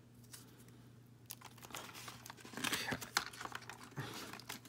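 Clear plastic toy packaging and its cardboard backing crinkling and crackling as they are handled, beginning about a second in and growing busier toward the middle.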